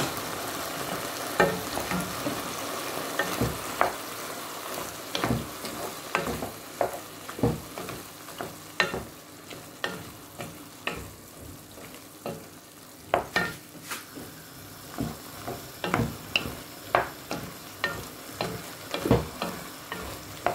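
Wooden spoon stirring chicken and vegetables frying in a nonstick pot, knocking against the pot about once or twice a second over a steady sizzle.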